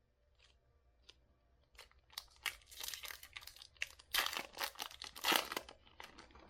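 Foil wrapper of a Bowman baseball card pack being torn open and crinkled: a run of crackling rustles, sparse at first and thickest in the second half.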